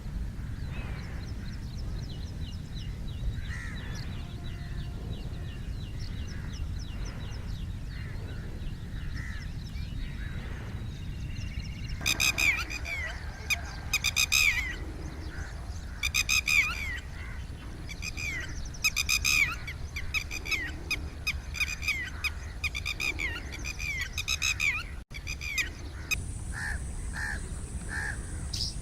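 Birds calling: faint high trills at first, then from about halfway through bouts of loud, harsh, repeated calls, each a quick falling note. A low rumble runs underneath.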